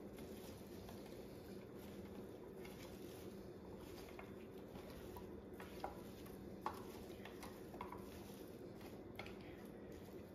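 Hands tossing oiled potato wedges, sausage slices and peppers in a glass baking dish: faint squishing and rustling, with a few light clicks against the glass, over a steady low hum.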